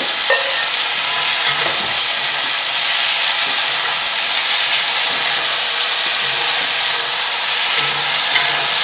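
Beef, onions and sauce sizzling steadily in a hot wok as the sauce hits the oil and is stirred in, with a few light spatula scrapes.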